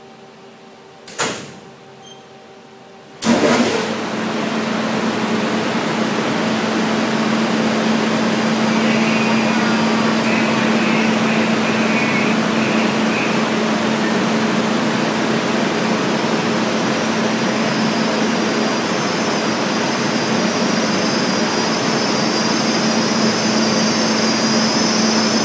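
Allen-Bradley PowerFlex drive being started into a stalled conveyor motor. A click about a second in, then a sudden loud, steady electrical hum with a rushing noise. It swells over a few seconds and holds while the drive runs at high current with no motor speed.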